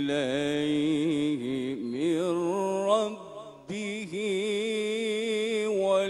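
A man's voice reciting the Quran in Arabic in the melodic tajweed style, drawing out long ornamented notes with wavering pitch. He pauses for a short breath about three and a half seconds in, then takes up another long held phrase.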